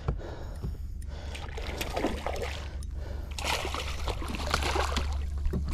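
Water splashing and sloshing beside a kayak as a hooked spotted seatrout is fought at the surface, louder from about the middle on, over a steady low hum.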